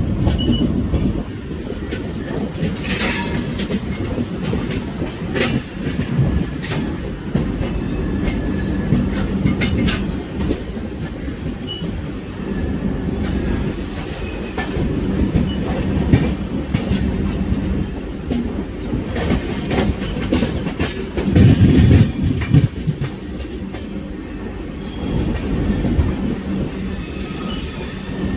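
Kanpur Shatabdi Express passenger train running over railway points as it changes tracks: a steady rumble with wheels clattering over the switches and rail joints, a brief wheel squeal about three seconds in, and a louder clatter around two-thirds of the way through.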